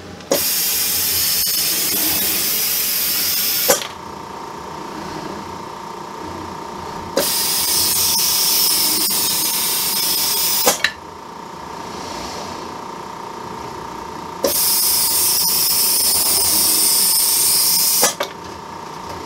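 Pneumatic vacuum suction gripper on a robot arm hissing three times, about three and a half seconds each. Each hiss switches on and off with a sharp valve click. Each hiss is the suction holding one candy package from pick to place.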